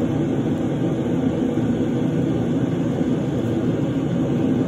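Steady low rumbling background noise, even throughout with no distinct events.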